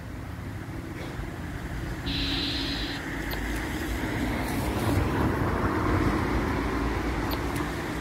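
Road traffic noise: a steady rumble that swells as a vehicle passes about five seconds in.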